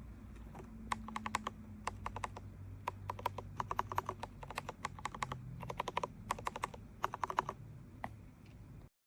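Typing on a mechanical keyboard fitted with ABS cat-paw keycaps: quick runs of key clicks in bursts, starting about a second in and stopping near the end.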